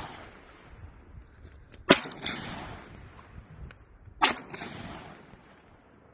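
Two gunshots about two and a half seconds apart, about two seconds in and about four seconds in, each followed by a second or so of echo dying away.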